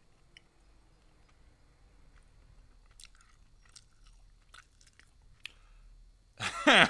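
A person chewing a bite of dry, stringy cooked steak, faintly, with small wet clicks of the mouth. Near the end a loud vocal exclamation breaks in.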